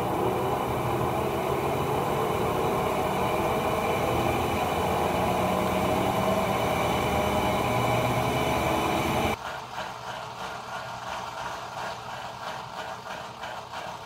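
Electrolux top-loading washing machine running a short spin while it drains: a steady motor hum that cuts off suddenly about nine seconds in, leaving a quieter, fainter sound from the machine.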